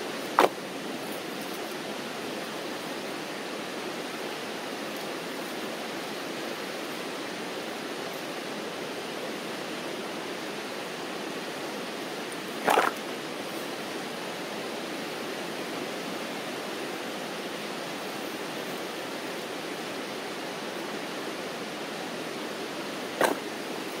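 Steady rush of a fast-flowing river running high with snowmelt. Three short thuds, one just after the start, one in the middle and one near the end, as bags of dry firewood are dropped onto the dirt.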